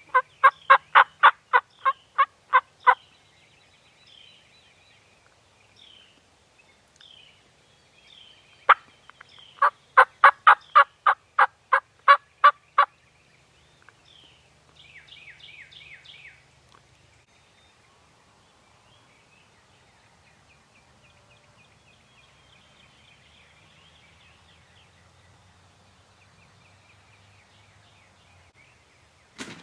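Wild turkey yelping: two loud series of evenly spaced yelps, about four a second, each lasting three to four seconds with a pause between. A quick run of higher notes comes shortly after the second series, and faint songbird chirps sound in the gaps.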